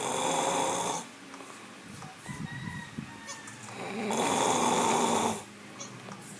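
Snoring: two long, loud snores about four seconds apart, each lasting over a second.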